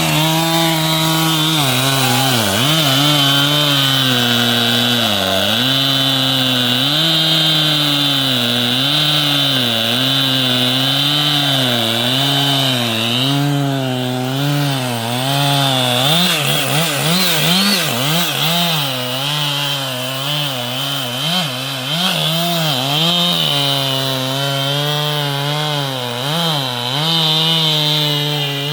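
Large two-stroke chainsaw cutting into wood at high revs. Its engine pitch sags and recovers again and again as the chain bites, most noticeably in the second half.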